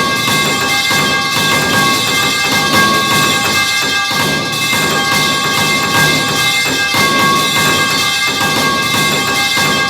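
Metal pipe falling sound effect layered many times over into one continuous clanging din: a dense run of metallic strikes over a steady ringing of several held tones, with no silence between.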